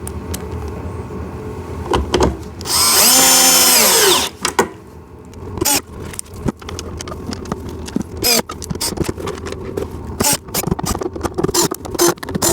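Power drill driving a screw during assembly: one drive of about a second and a half, about three seconds in, with the motor's whine rising and then falling. It is followed by clicks and knocks of parts and screws being handled.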